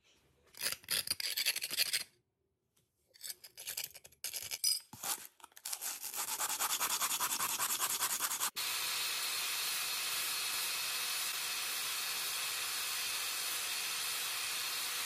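Abrasive paper scraping a porcelain floor tile to level a superglue-and-dust filling in a chip. It starts as short bursts, then quick back-and-forth strokes of a hand sanding block. From about eight and a half seconds it becomes a steady, even scraping from a round sanding pad run flat over the repair.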